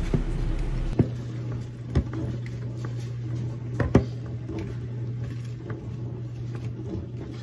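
A whisk and spatula stirring thick brownie batter in mixing bowls, with a few sharp knocks of the utensils against the bowls, over a steady low hum.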